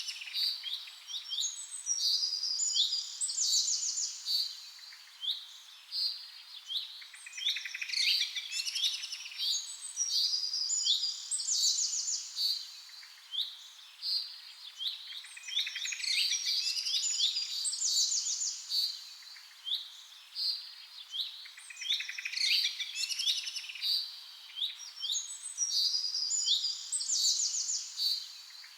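Birdsong: bursts of chirps and quick trills, with the same pattern coming round about every seven seconds, like a looped recording.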